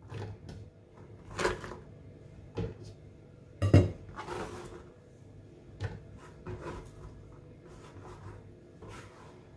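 Scattered light knocks and taps as chopped celery is scraped by hand off a plastic cutting board and dropped into a blender jar; the loudest knock comes a little under four seconds in.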